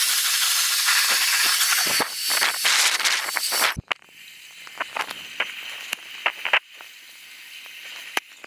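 Dyson V8 cordless stick vacuum running with a small nozzle, sucking up spilled sand and grit: a loud steady hiss with a faint high whine. About four seconds in it drops to a quieter hiss, with grit ticking and crackling as it is drawn up the tube.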